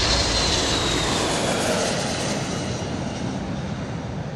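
Four-engine RC-135 jet taking off, its engines running with a high whine that falls slightly in pitch. The roar fades steadily as the aircraft climbs away.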